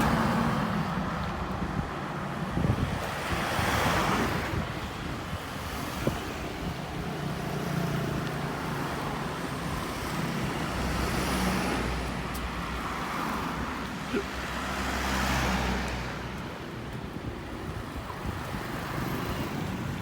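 Road traffic going by, vehicles swelling and fading away several times over a steady low rumble and wind noise on the microphone.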